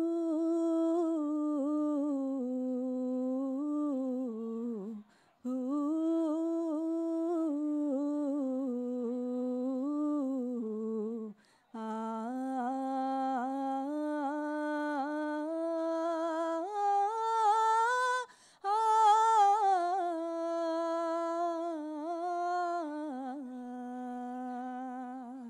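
A woman hums a slow, wordless melody unaccompanied into a handheld microphone, in four long phrases with short breaths between them, opening an unplugged Hindi romantic song.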